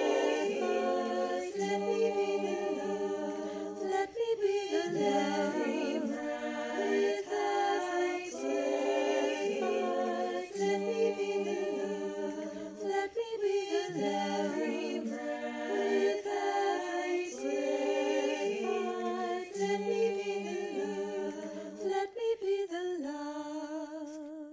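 A cappella vocal harmony: several sung parts at once, moving phrase by phrase. Near the end it narrows to one held note that fades away.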